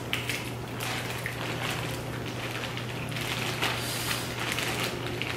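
Crab leg shells being cracked and pulled apart by hand, with plastic bag crinkling: a scattered run of small cracks and clicks over a steady low hum.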